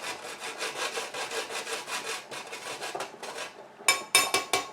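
A whole nutmeg being ground, rasping in quick even strokes about five a second. Near the end the rasping stops and a few sharp, ringing metallic taps follow in quick succession.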